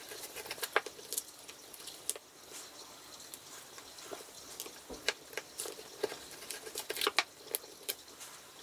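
Kitchen knife scraping and prying at small metal eyeshadow pans in a cardboard palette, with scattered light clicks and scratches as a pan is worked free and set down.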